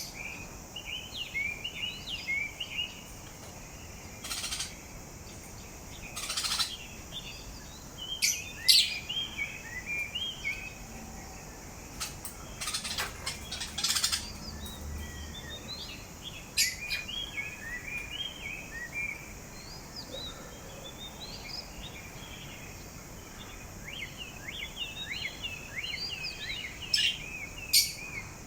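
A parrot warbling in strings of short chirps, broken by scattered sharp clicks that fit beak grinding.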